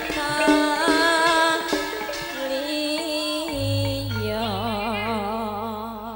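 Live band music with a singer: a melodic line gives way to a long held note with a wide vibrato over a low sustained bass note that comes in about halfway. The music fades away at the very end.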